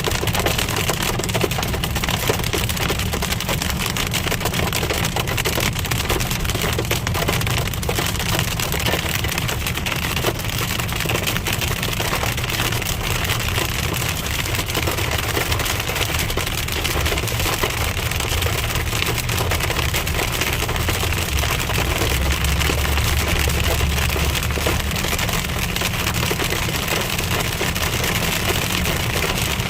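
Hail and rain pelting a car's roof and windshield in dense, constant rattling ticks, heard from inside the cabin over the steady low rumble of the car on the road.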